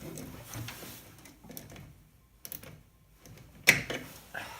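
Scattered light clicks and taps of metal tools and parts being handled on an engine, with one sharp knock a little after three-quarters of the way through.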